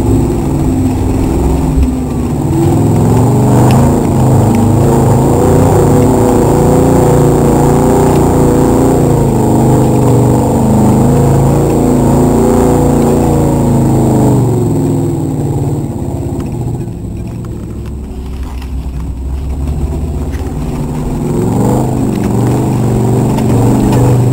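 Mud-bog truck engine revving hard under heavy load as it churns through a mud pit, its pitch swinging up and down. The revs fall away about fifteen seconds in, then climb again near the end.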